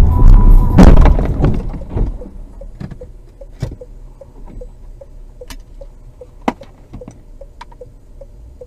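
Car crash: a loud collision about a second in as the car with the dashcam hits a white car skidding across its path, dying away within a second or so. After that comes a faint, even ticking at about three ticks a second, with a few sharp clicks.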